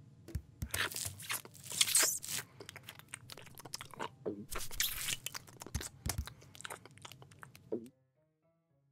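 Cartoon foley of a cat eating greedily: a run of crunching, biting and chewing sounds that stops about eight seconds in.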